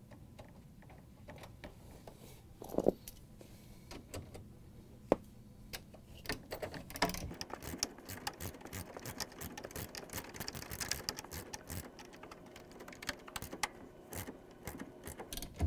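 Socket ratchet clicking in rapid runs as the bolt is driven into a refrigerator roller assembly. Two sharp knocks come before it, in the first few seconds.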